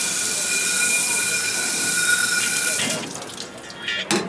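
Commercial pre-rinse spray valve spraying water onto dishes in a rack: a steady hiss with a thin high whistle, shutting off about three seconds in. A couple of sharp clacks near the end.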